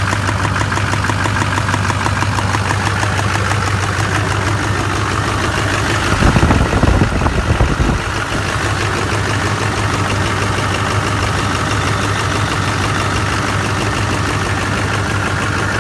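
LB7 Duramax 6.6-litre V8 turbodiesel idling steadily with fast diesel clatter, running after new heads, injectors and injector cups were fitted to cure the coolant loss from bad cups. About six seconds in, a louder low rumble lasts for roughly two seconds.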